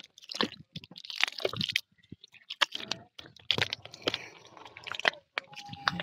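Bare feet squelching through soft, wet mangrove mud in irregular steps, with sucking, squishing sounds as each foot pulls free.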